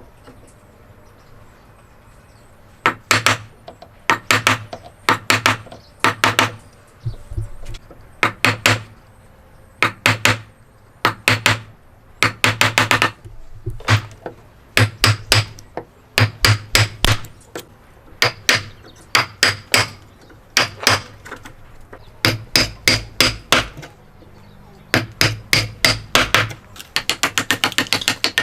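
Hammer blows in hand woodworking joint-cutting: short clusters of several quick, sharp strikes with brief pauses between, ending in a fast, even run of blows.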